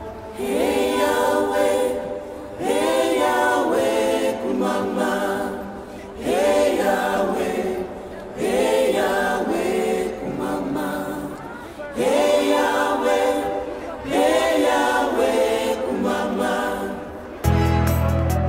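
A group of voices singing a cappella in short repeated phrases about every two seconds, each phrase opening with a rising swoop. A deep, steady low backing comes in about a second before the end.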